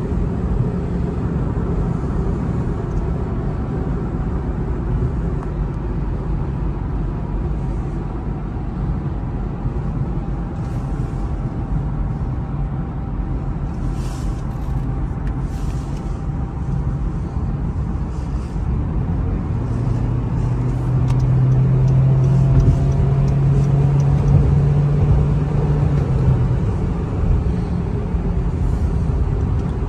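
Cabin sound of a 2012 Honda Civic cruising at highway speed: steady tyre and road rumble with the engine running underneath. About two-thirds of the way through, a low steady engine drone comes up and the whole sound grows a little louder.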